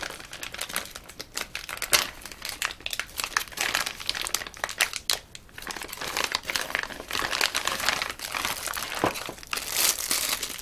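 Clear LDPE plastic bags crinkling and crackling as hands unwrap a bagged power adapter and its cord: an unbroken run of irregular sharp crackles.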